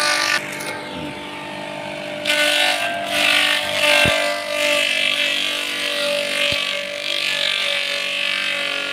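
Homemade feed chopper machine running steadily while water hyacinth leaves are fed into its blades; the shredding adds louder, rougher noise from about two seconds in until about six seconds in.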